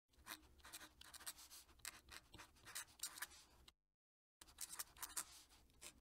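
Fountain pen's gold nib scratching faintly across paper in quick writing strokes, with a short pause a little past halfway as the nib lifts between words.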